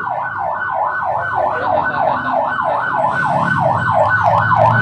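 Electronic siren in a fast yelp, its pitch sweeping up and down about four times a second, loud and unbroken.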